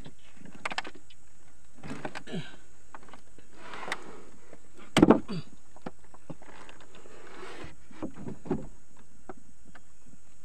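Handling noises as a spiny catfish is worked free of a nylon gill net and its spine broken off: net rustling and scattered knocks against the wooden canoe, with one loud sharp knock about five seconds in.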